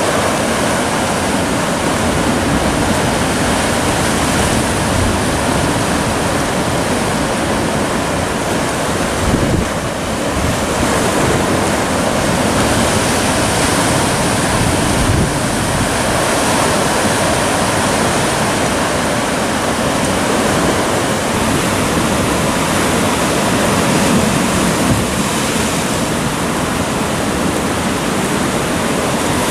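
Sea surf breaking and washing over a rocky volcanic shore: a steady, loud rush of water.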